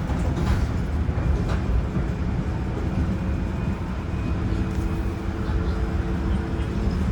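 Running noise of an older Seoul Subway Line 4 train with Toshiba GTO-VVVF traction, heard from inside the car: steady wheel and track noise, low and dense, with a faint even tone from the traction equipment at a steady pitch.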